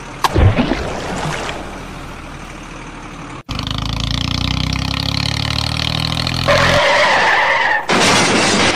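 Vehicle sound effects cut together: a sudden skid-like sound with falling pitch just after the start, then a steady engine running, with a squeal over it near the end. The sound cuts off abruptly twice.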